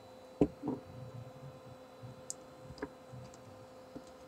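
Small clicks and taps of an opened iPod Color's chrome back case and battery being handled, a few scattered clicks with the sharpest about half a second in.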